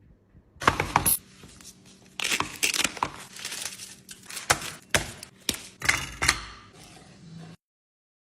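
A run of sharp knocks and clatters with rustling, crinkling noise between them, cutting off suddenly near the end.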